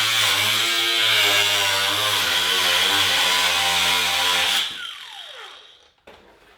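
Power tool cutting through the car's sheet-metal floor, its pitch wavering under load. It stops about three-quarters of the way in and its pitch falls away as it winds down, leaving near quiet with a few light knocks.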